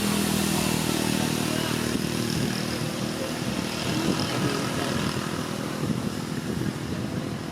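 A motor vehicle engine running steadily, fading out after about three seconds.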